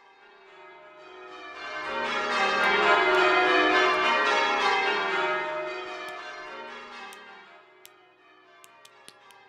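Soundtrack of many bell-like tones ringing together, swelling to a peak and then fading away over several seconds. Near the end, a sharp clock-like ticking begins.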